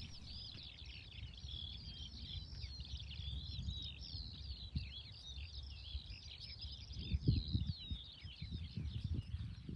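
A songbird singing one long, unbroken, quickly warbling and twittering song, high-pitched, over a low wind rumble on the microphone; a few dull low knocks come in from about seven seconds in.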